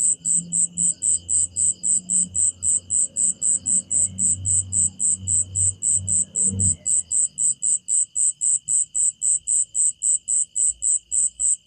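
Night insects calling: a loud, very high-pitched chirp repeating evenly about four times a second over a steady, unbroken high trill from other insects.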